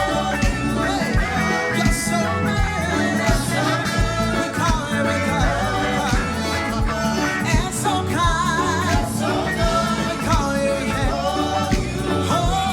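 Live praise and worship music: a band with a steady drum beat and bass, with singing over it.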